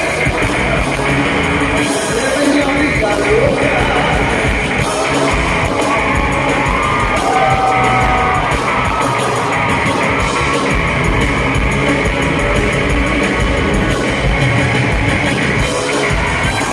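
Loud live pop-rock band music with a male voice singing over it and some crowd noise, recorded by a phone in the audience.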